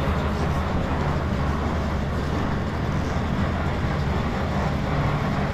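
Steady low rumble with a machine-like drone, unchanging throughout.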